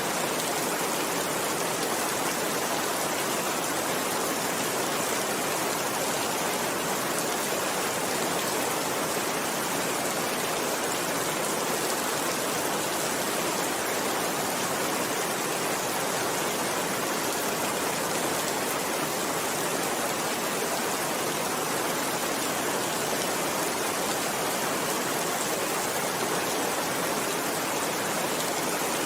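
Steady rainfall, an even unbroken hiss with no separate drops or pops standing out.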